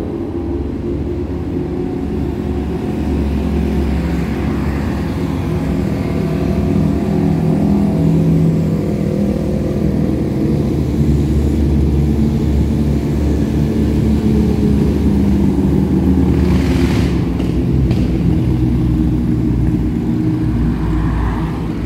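Many motorcycle engines passing at low speed in a slow procession, mixed with a few cars, making a steady blended engine sound; one vehicle passes noticeably louder a little past three-quarters of the way in.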